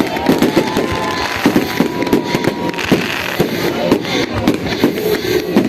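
A fireworks display: many rapid, overlapping bangs and crackles of exploding shells, several a second.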